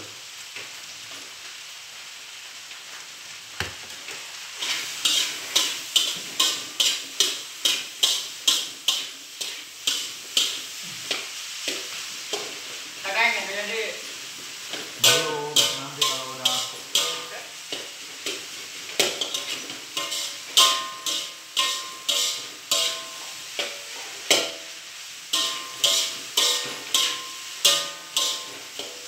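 Fried rice sizzling in a wok on a gas burner while a spatula scrapes and knocks against the wok, about two strokes a second from about five seconds in. Music plays from about halfway.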